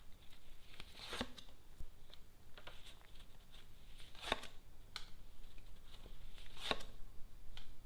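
Lenormand cards being handled: a soft rustle with scattered snaps and taps, the three sharpest about a second, four seconds and nearly seven seconds in.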